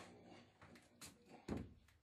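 Faint handling noise: a few light clicks and one dull knock about one and a half seconds in.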